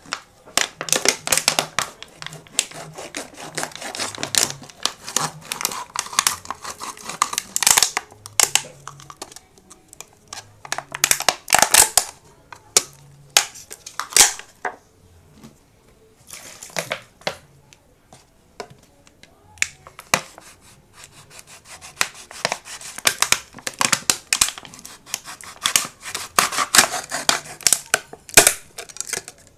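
Thin plastic water bottle crackling and crinkling as a knife saws through it, in bursts of sharp crackles with a few short pauses.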